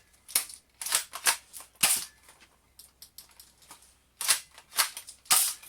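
Sharp mechanical clacks of a spring-powered SPAS 12 airsoft shotgun being pump-cocked and fired, in two quick groups of about four, with a pause between.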